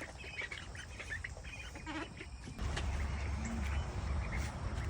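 Backyard chickens and ducks calling, a scatter of short chirps and clucks, busiest in the first half. A low rumble comes in a little past the middle.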